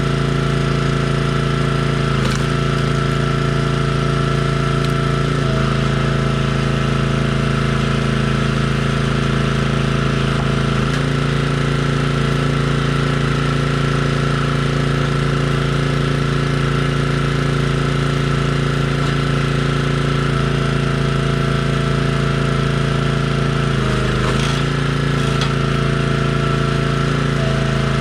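Small gas engine of a log splitter running steadily, with its pitch dipping briefly a few times.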